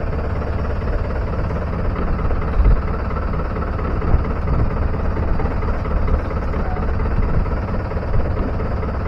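Small wooden fishing boat's engine running steadily while under way, with uneven low wind rumble on the microphone.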